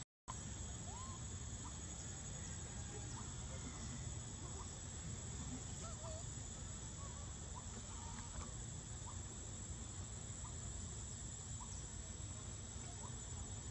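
Quiet outdoor ambience: a steady hiss and low rumble with faint, short chirps scattered throughout, after a brief dropout at the very start.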